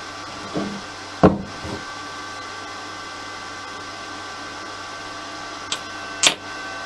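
Cooling fan of a Kedr MultiTIG 2000P inverter TIG welder running steadily, a hum with a thin whine over it. A few sharp clicks and knocks break in, the loudest about a second in and near the end.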